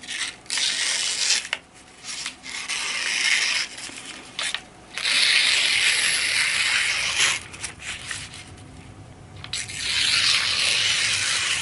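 A very sharp steel knife edge slicing through thin phone-book paper in four long hissing strokes, cutting cleanly without catching or tearing.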